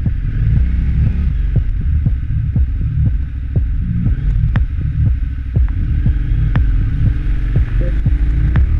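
KTM 990 Adventure's V-twin engine running at low revs as the bike is ridden slowly into a flooded track, a steady low throb with irregular sharp knocks.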